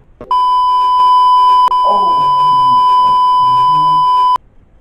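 Censor bleep: one loud, steady, high-pitched beep tone about four seconds long laid over speech, cutting off suddenly.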